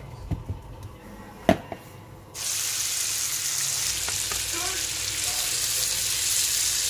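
Marinated chicken pieces frying in butter in a wok, a steady loud sizzle that starts suddenly a little over two seconds in. Before it, a few light knocks and one sharp click about a second and a half in.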